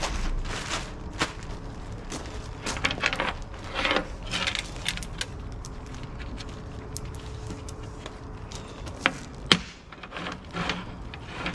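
Black plastic garbage bag crinkling and rustling as it is pulled on as an apron, then stone mosaic tiles clattering as the sheet is handled on the tile saw's metal table, with two sharp clicks near the end. The saw is not running.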